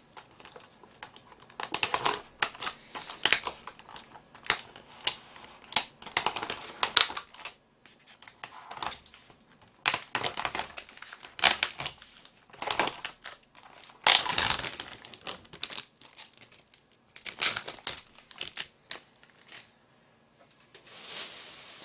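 Plastic cling film being peeled and pulled off a disposable plastic takeout tray, crinkling and crackling in irregular bursts.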